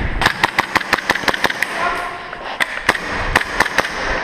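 Gas blowback airsoft pistol, a Tokyo Marui PX4, firing: two rapid strings of sharp cracks, the first in the opening second and a half and the second from about two and a half seconds in.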